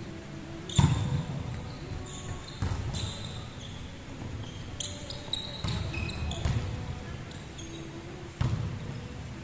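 Volleyball rally: several sharp slaps of hands and forearms striking the ball, echoing around a large sports hall, with short squeaks of shoes on the wooden court in between.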